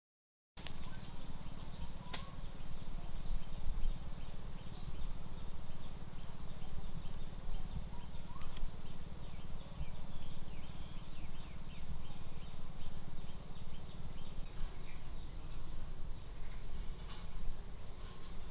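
Rural outdoor ambience: a gusty low wind rumble on the microphone, with faint insect and bird ticks. A single sharp click comes about two seconds in, and a high steady insect buzz joins near the end.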